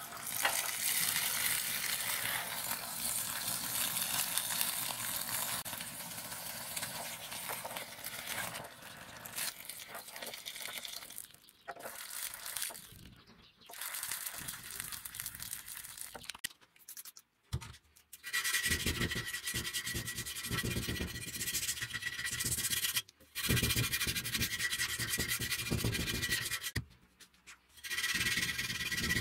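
A run of short clips. First a steady rushing hiss while the steel cleaver blade heats in an open fire, then the hiss of the blade being quenched in a cloud of steam. In the second half comes a steady rubbing of hand sanding on the steel blade, with a thin high tone running through it.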